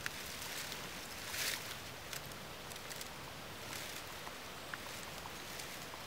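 Dry fallen leaves rustling and crackling as a person kneels in the leaf litter and handles a downed deer, with a brief louder rustle about a second and a half in and scattered small ticks over a steady outdoor hiss.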